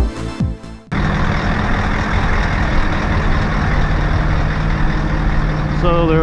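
Electronic music with a kick-drum beat cuts off about a second in. It gives way to the Tadano ATF 180G-5 all-terrain crane's diesel engine running steadily. A man starts talking near the end.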